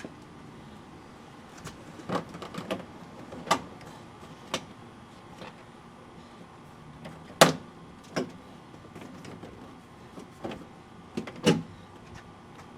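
Irregular clicks and knocks of metal and plastic door parts and hand tools being handled while a pickup truck door is taken apart, the loudest two knocks near the middle and near the end.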